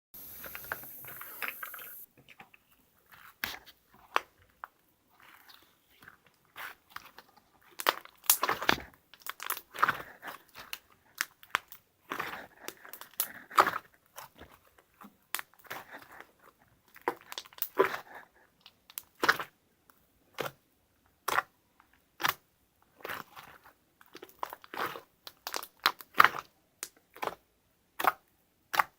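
Close-up crunching and chewing of crisp food in irregular bursts with short pauses between, after a brief steady hiss at the start.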